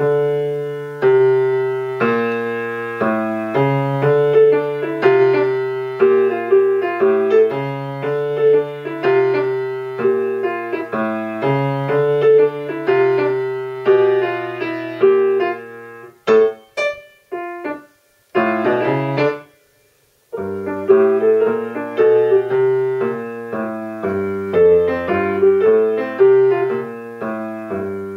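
Grand piano playing a swing-style jazz piece, with a repeating bass line under chords and melody. About sixteen seconds in it breaks into a few short detached stabs, stops for about a second, then the steady swing resumes.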